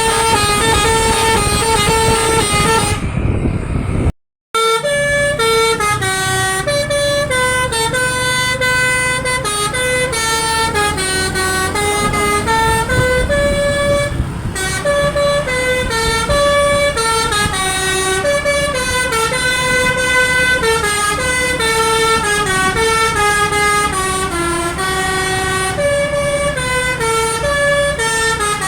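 Telolet Basuri multi-tone bus horn playing a quick melody of short stepped notes, sounded by hand in a koplo rhythm. The sound cuts out completely for a moment about four seconds in.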